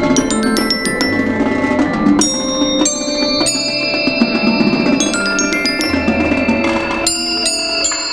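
Glockenspiel played with two mallets: quick struck metal-bar notes ringing out over the rest of an indoor percussion ensemble, with other mallet instruments and low bass tones beneath.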